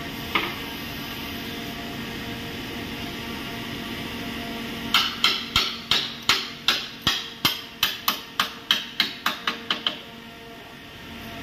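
Hammer blows in a rapid run of about twenty strikes, roughly four a second, each ringing briefly, starting about five seconds in. One single knock comes just before, near the start. A steady hum runs underneath.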